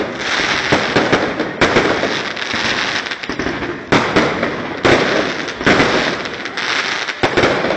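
Aerial fireworks going off close by: several sudden loud bangs, each followed by a dense crackle of sparks.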